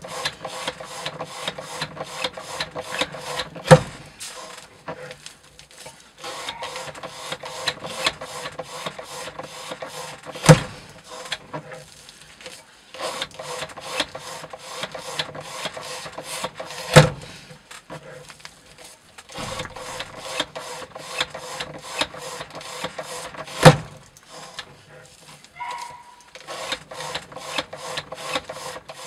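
A knife blade cutting rope on a weighted, hand-worked cutting-test rig: runs of fast, rasping clicks a few seconds long, each ending in a loud knock, four times at even intervals of about six and a half seconds.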